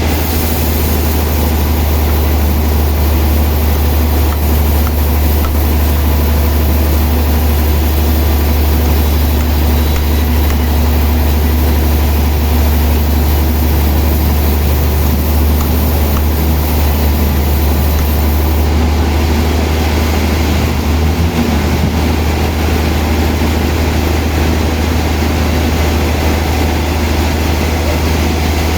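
Sawmill saw running steadily: a loud, even machine sound with a strong low drone, and a slight change in its higher tones about two-thirds of the way through.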